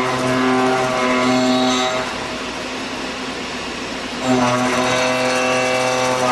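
Hurco VTXZ CNC machining center running with a steady, pitched hum full of overtones. A little after two seconds in, the hum gives way to a rougher, noisier sound, then returns suddenly near the end.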